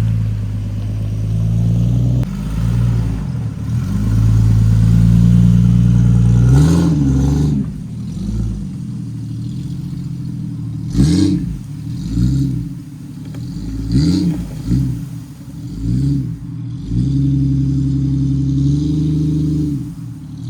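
Engine of a motor vehicle running and revving up and down several times, with pitch rises about a third of the way in, around halfway, and twice more later on.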